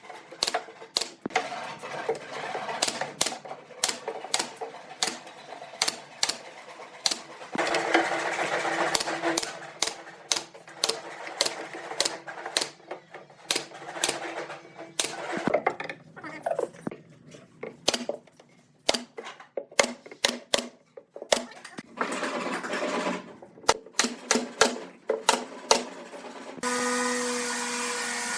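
A run of sharp, irregular taps and knocks, as from hand tools working wood. Near the end a power tool starts up and runs steadily.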